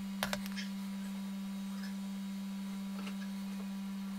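Steady electrical hum on one low tone, with a few short clicks about a quarter of a second in.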